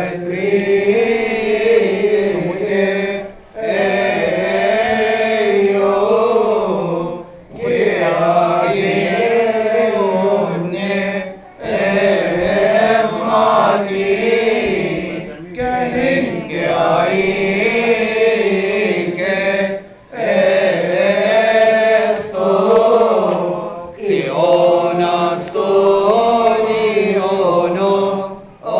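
Men's voices chanting a Coptic Orthodox hymn, the notes drawn out and slowly rising and falling. The singing comes in phrases of about four seconds, with a short break for breath between them.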